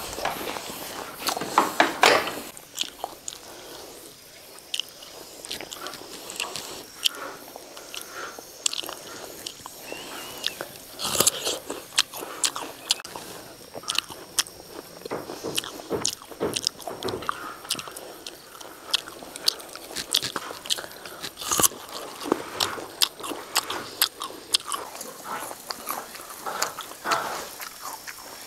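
Crisp biting and chewing of peeled raw food, with repeated short crunches. Some bites are sharper and louder than others.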